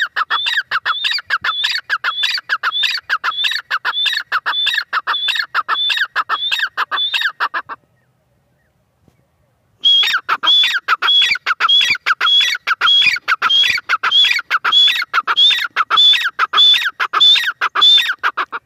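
Grey francolin calling: two long runs of loud, rapidly repeated ringing notes, several a second. The first run breaks off about eight seconds in and the second starts about two seconds later.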